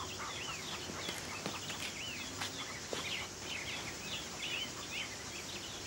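Small birds chirping, many short chirps that rise and fall in pitch and overlap one another without a break, over a steady outdoor hiss.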